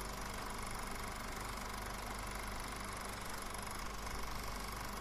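No real soundtrack: steady hiss and hum with a faint steady whine, the background noise of a VHS transfer of a silent film.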